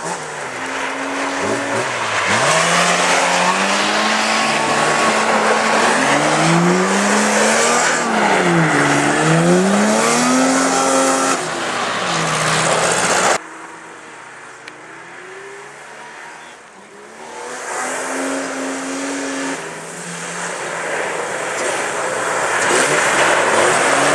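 Rally car engines racing on an ice circuit, revving hard with the pitch climbing and falling again and again as the drivers work the throttle and gears, over a hiss of tyres sliding on ice and snow. About halfway through the sound cuts abruptly quieter, then one car's engine grows louder as it comes closer.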